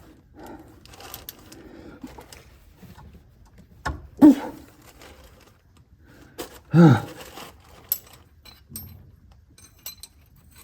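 Scattered clicks and knocks of hand wrenches working on a seized fuel fitting. There are two short strained grunts of effort, about four and seven seconds in, and these are the loudest sounds.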